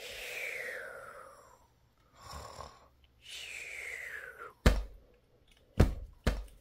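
A person imitating snoring: two long, wheezy breaths, each with a whistle falling in pitch. Near the end come three sharp thumps, which the listening characters take for footsteps.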